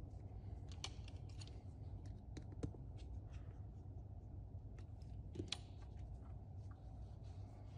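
Light clicks and small rattles of a plastic trigger switch and its wire leads being handled and fitted together, a few sharper clicks scattered through, over a low steady room hum.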